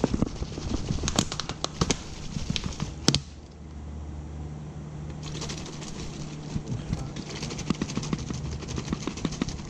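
Small hard objects being handled at close range: irregular sharp clicks and taps that thin out for about two seconds a little past three seconds in, then pick up again. A steady low hum runs underneath.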